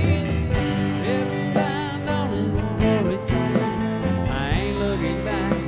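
Background music: a country song with a steady beat.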